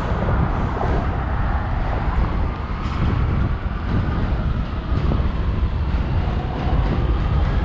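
Subway train running on the elevated BMT Astoria Line: a loud, steady low rumble with a faint whine that rises and falls in pitch.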